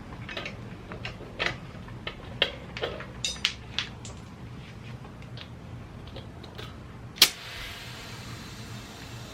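Scattered clicks and knocks of tools and gear being handled, then a single sharp snap about seven seconds in followed by a faint steady hiss of air as the motorcycle tire is about to be inflated.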